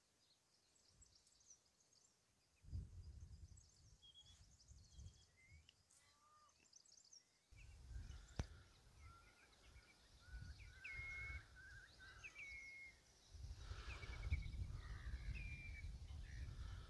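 Faint small birds chirping and calling, many short notes and brief whistles, over intermittent low rumbles. A single sharp click about eight seconds in.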